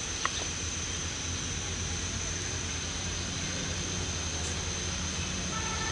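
Steady low background rumble and hum with a faint high whine. A faint steady tone of several notes comes in near the end.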